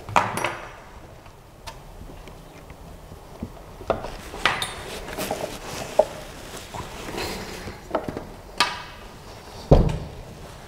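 Clunks and knocks from assembling a 3D printer: the metal gantry frame bumping and clattering as it is handled and set onto the printer base, with a heavier low thump near the end.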